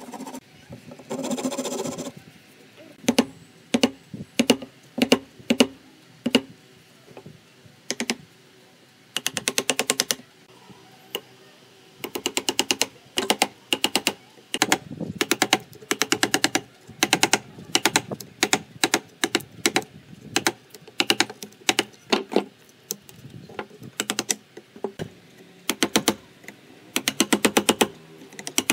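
Hand tools cutting a joint in a pine frame held in a bench vise: a short hand-saw stroke about a second in, then repeated bursts of rapid light tapping and single knocks as a wood chisel is worked into the joint.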